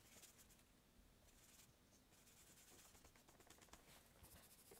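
Near silence, broken by faint scratchy swishes of a paintbrush picking up acrylic paint on a paper-plate palette and stroking it onto the painting board, in three short spells.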